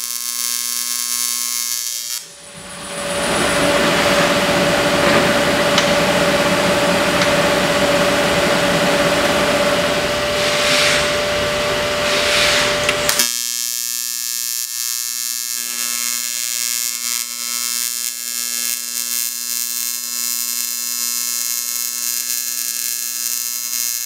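AC TIG welding arc on aluminum plate, a steady electric buzz as the joints are tack-welded. From about two seconds in until about thirteen seconds it turns harsher and noisier, then settles back to the smoother buzzing hum.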